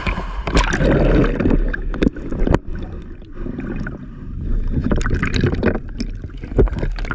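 Water sloshing and gurgling around a GoPro action camera as it is dipped into shallow seawater and held underwater. The sound is muffled and rumbling, with a few sharp knocks.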